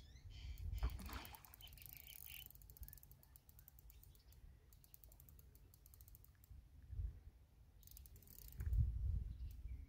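Spinning fishing reel clicking rapidly as a hooked carp is played and reeled in, in the first few seconds and again near the end. A bird chirps briefly at the start.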